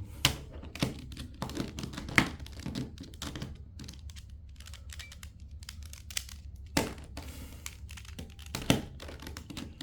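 Plastic 3x3 speedcube layers being turned one-handed: irregular clicking and clacking, with a few sharper snaps about 2, 7 and 9 seconds in. The turns are a short sequence repeated over and over to fix twisted centre pieces.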